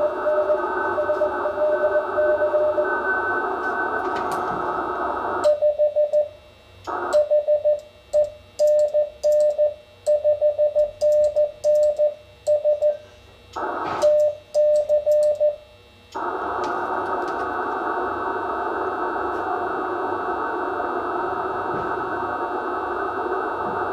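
Icom IC-7300 transceiver on CW: a Morse code signal beeps through band hiss. About five seconds in the hiss cuts out and the radio's sidetone beeps out dots and dashes as Morse is sent on a hand key, with faint clicks from the key. About sixteen seconds in the band hiss returns.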